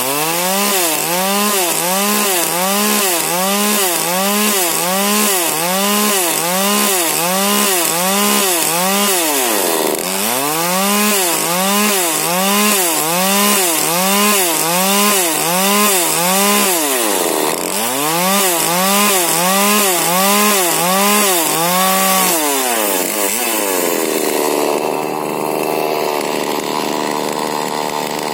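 Husqvarna 40cc two-stroke chainsaw with a modified exhaust and an 18-inch Stihl bar, cutting wood: the engine pitch dips and recovers over and over, about one to two times a second, as it loads up in the cut. Near the end it runs at a steadier speed.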